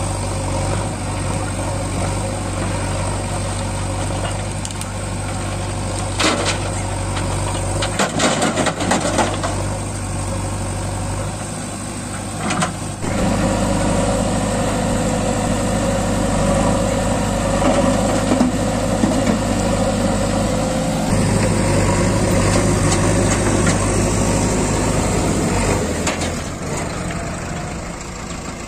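Diesel engines of a JCB backhoe loader and a tractor running steadily, with a few clattering knocks in the first half as rocks go into the tractor's trolley. The engine noise steps up about halfway through and stays louder.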